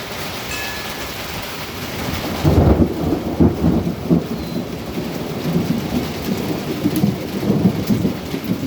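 Steady rain hissing, with thunder breaking into a loud, low rolling rumble about two and a half seconds in. The rumble carries on in uneven swells.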